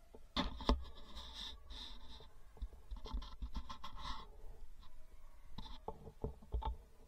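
Handling noise of a shotgun being moved and swung, heard through a camera mounted on the gun: two sharp knocks about half a second in, then scraping and rustling, and a few more knocks near the end.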